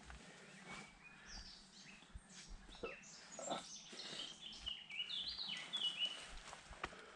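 A songbird singing: a run of quick, high whistled notes that step up and down, busiest in the second half, with a few light clicks.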